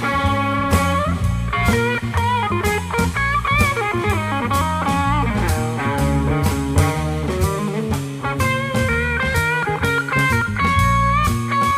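Live jazz-fusion trio: an electric guitar solo of quick single-note runs with string bends, ending on a long held note, over electric bass and a drum kit.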